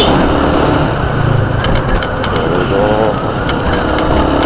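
Small motorcycle engine running at light throttle while riding, under steady road and wind noise.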